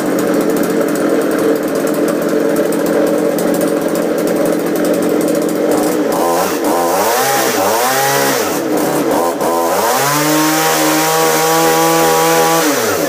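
Poulan-built Craftsman 3700 two-stroke chainsaw running, first at a steady speed, then revved up and let back down three times before being held at high revs for a few seconds and dropping away at the end. It bogs a little under throttle, which the owner puts down to a chain adjusted too tight and a bar-oil tank that is probably dry.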